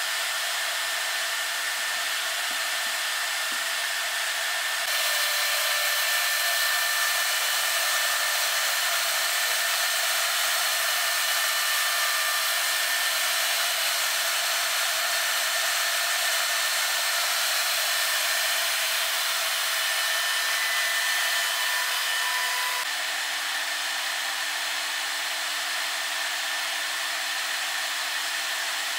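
Router spindle of a Lee Hyun multi wood machine running at speed and cutting a slot in a wooden board: a steady high whine with hiss.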